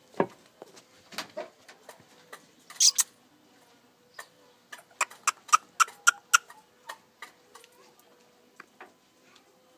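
Scattered sharp taps and clicks, one louder burst about three seconds in, then a quick run of about eight taps with a slight ring just past the middle, over a faint steady hum.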